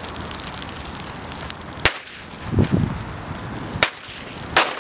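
A large bonfire of burning matches and hot glue crackling steadily. Sharp loud cracks come from the pile about two seconds in, near four seconds and again just before the end, with a short low rumble of flame between the first two.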